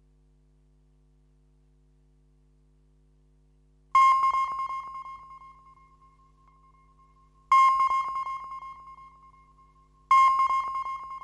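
Three submarine sonar pings: each is a sharp high tone that rings away over a couple of seconds. The first comes about four seconds in, after near silence, and the others follow about three and a half and two and a half seconds later.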